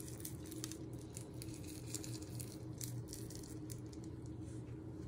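Hundreds and thousands rattling in a small plastic pot and pattering onto an iced cake as scattered light ticks, over a steady low hum.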